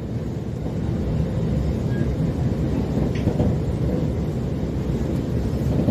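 SMRT R151 train running along the track, heard from inside the car: a steady low rumble of wheels and running gear.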